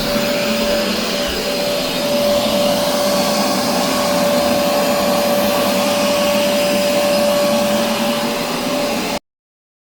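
Hoover carpet shampooer running steadily: a loud rushing motor noise with a constant whine, cutting off suddenly about nine seconds in.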